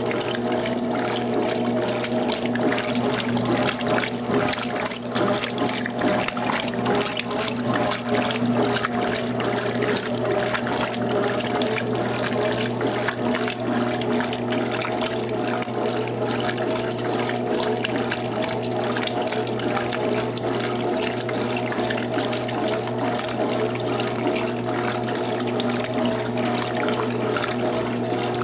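Electrolux TOP 8 top-loading washing machine running water through its tub during the rinse: a steady rush of water over a constant mechanical hum.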